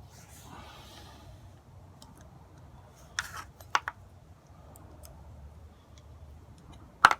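Small screws and metal parts being handled and fitted into an aluminium rail connector: a soft rustle at first, a few sharp metallic clicks about three seconds in, and a louder clatter of clicks near the end.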